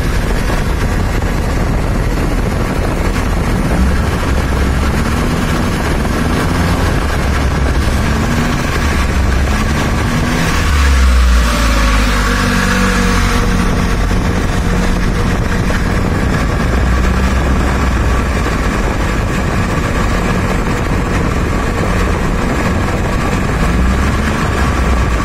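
Petrol engine idling steadily, its speed wavering slightly, with a brief swell about eleven seconds in. It is running for a dynamic ignition timing check with a stroboscopic timing light.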